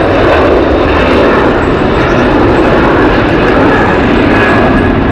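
Airbus A380 airliner's four jet engines at take-off power as it climbs away: loud, steady engine noise.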